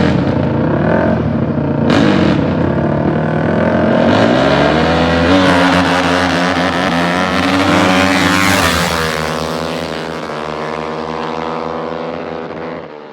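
450cc four-stroke dirt bike engines running at high revs. The pitch climbs from about four seconds in as the bikes accelerate, then falls and fades away near the end.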